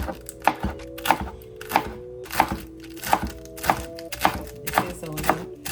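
Knife chopping iceberg lettuce on a cutting board: a steady run of sharp chops, about one every half to two-thirds of a second.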